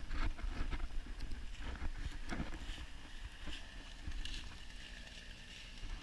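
Wind rumbling on the action-camera microphone, with scattered faint clicks and rustles as the camera is handled.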